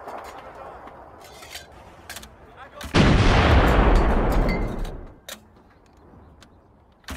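Clanks and knocks of a WW2 Soviet artillery gun being worked by its crew, then about three seconds in a single loud gun blast from a blank round that rumbles away over about two seconds. A second blast starts right at the end.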